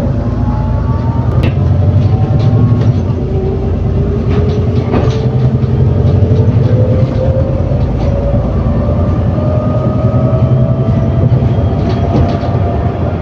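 ADL Enviro400 City bus with a Voith automatic gearbox heard from on board while accelerating: a steady low engine drone under a driveline whine that rises slowly in pitch as the bus gathers speed, with light rattles and clicks from the interior.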